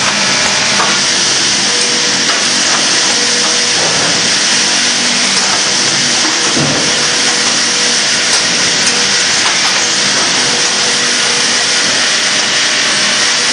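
Steady, loud hissing din of sawmill machinery running, with a few faint knocks now and then.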